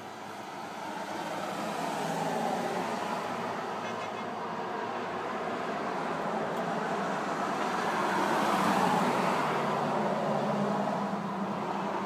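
Road traffic: cars passing on the street, a steady tyre-and-engine hiss that builds over the first couple of seconds and swells loudest about three-quarters of the way through as a car goes by.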